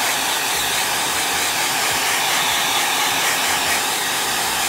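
Hair dryer running steadily, blowing hot air to heat-set freshly airbrushed paint on a fishing lure.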